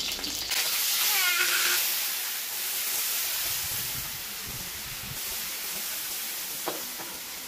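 Food frying in hot oil in a pan: a steady sizzling hiss, loudest in the first couple of seconds, with one light knock near the end.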